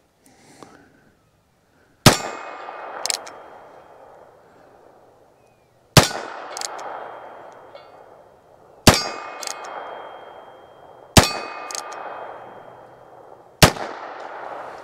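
Five shots from a .22 LR single-action revolver (Heritage Barkeep Boot), spaced two to four seconds apart, most followed by the ring of a steel target being hit. A lighter click comes about a second after several shots as the hammer is cocked for the next round.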